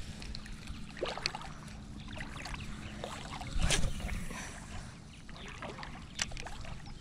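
Outdoor wind rumble on the microphone with scattered clicks and handling noise from a spinning rod and reel, and a louder swish about three and a half seconds in as the lure is cast.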